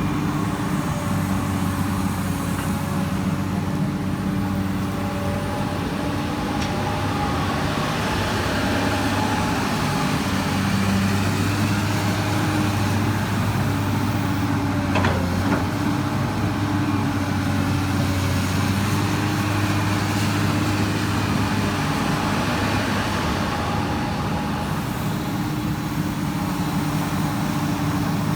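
Komatsu PC200 hydraulic excavator's diesel engine running steadily under digging load, with a rushing hydraulic noise that swells through the middle. A single sharp knock about halfway through.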